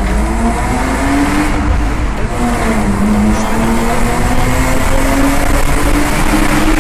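BMW E36 325i's M50B25 straight-six accelerating hard, heard from inside the cabin. Its pitch climbs, drops briefly about two seconds in at an upshift, then climbs steadily again.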